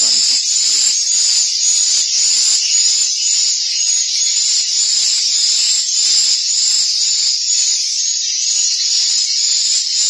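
Swiftlet calls: a rapid, continuous high-pitched twittering of many short repeated chirps, heard inside a swiftlet nest house.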